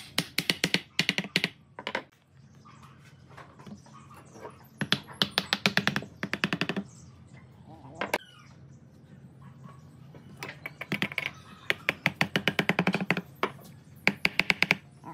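A steel hammer tapping rapidly on pine wood blocks, about seven light blows a second, in four separate runs.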